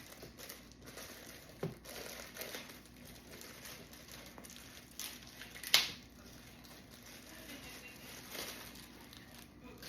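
Packaging crinkling and rustling as the AB Carver Pro's knee pads are unwrapped, irregular and fairly quiet, with one short, much louder crackle about six seconds in.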